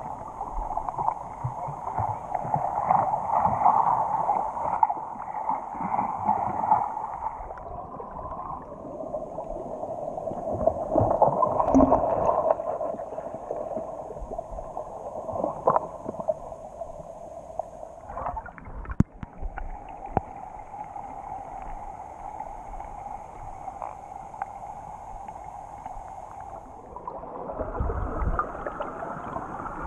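Muffled rushing and gurgling of river current heard underwater through a submerged camera, with a few sharp clicks and low knocks.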